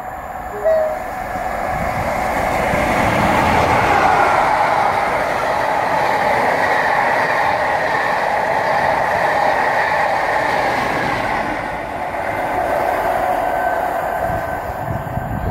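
A locomotive-hauled train of Pullman coaches passing through the station on the near line. Wheel and rail noise builds over the first few seconds, stays loud for several seconds as the coaches go by, then fades as the train draws away. A short, high note sounds about a second in.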